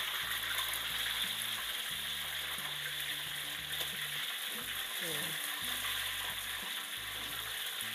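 Pandan-wrapped chicken wings deep-frying in hot oil in a wok, a steady sizzle, while metal tongs turn the pieces. The wings are nearly done and almost ready to lift out.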